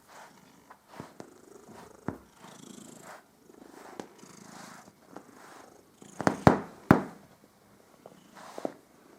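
Domestic cat purring, swelling and fading with each breath about once a second, a sign of the cat enjoying being groomed. A few sharp clicks and a louder pair of knocks about two-thirds of the way in.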